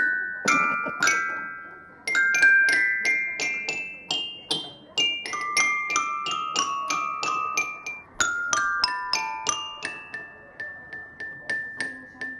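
Red toy grand piano played by a baby: clusters of neighbouring keys struck together at an uneven pace, a few times a second, each chord ringing with a chiming tone and fading away.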